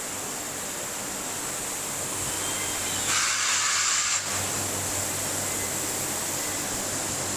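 Steady background noise of a large factory hall, with a thin high whine over it and a brief burst of hiss about three seconds in.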